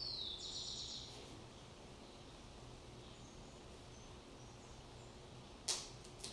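Quiet room tone with a few faint high chirps in the first second, then a single sharp click about three-quarters through and a fainter click just after, as of something small set down or knocked on the altar.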